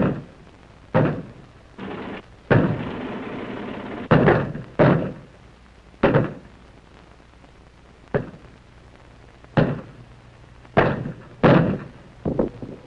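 Artillery blasts: about ten sharp booms at irregular intervals, a second or two apart, with a rushing noise under the first few.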